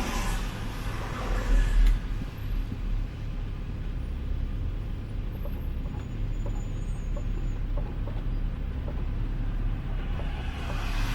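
City street traffic: vehicles passing with a steady low engine rumble. The hiss of tyres on the wet road swells at the start and again near the end as cars go by.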